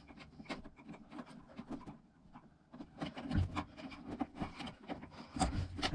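Handling noise from a smoke alarm and its wiring being fitted: scattered small clicks, taps and rubs, with a couple of soft knocks and a brief hush about two seconds in.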